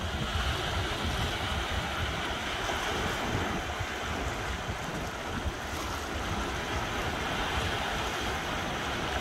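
Small surf waves breaking and washing up on a sandy beach, with wind buffeting the microphone in a low, gusty rumble.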